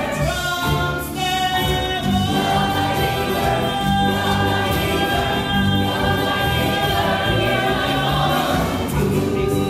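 Gospel-style show tune from a stage musical: a cast ensemble singing long held notes together over a band with a pulsing bass line.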